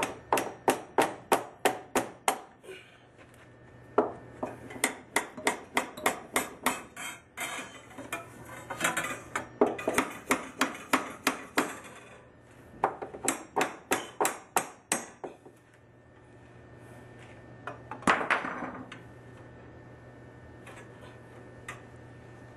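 Hammer striking a copper pipe brace to wedge its flattened ends tight into wooden floor joists: quick sharp metallic strikes, about three a second, in four runs. One louder knock comes about three-quarters of the way through.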